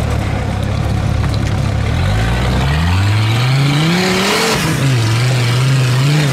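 Custom 4x4 trial buggy's engine running low, then revving up under load as the buggy climbs a rock step: the pitch rises for about two and a half seconds, dips briefly, and holds high. Tyres scrabble on loose rock around the peak of the revs.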